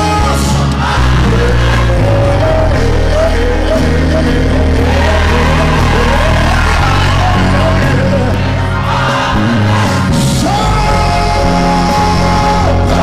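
Live gospel music: a band with a heavy, steady bass under a choir and a soloist singing, with a note held for about two seconds near the end. Shouts from the congregation come through the music.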